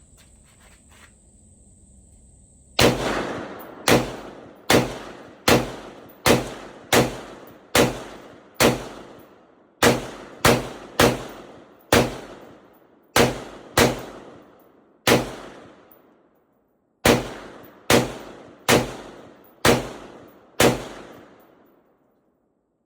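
Diamondback AR-15 rifle firing semi-automatic, about twenty single shots at roughly one a second, with a few short pauses, each shot ringing out with echo.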